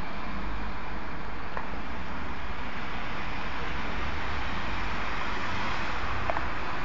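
Steady wash of road traffic noise from busy streets below, cars running without any single vehicle standing out.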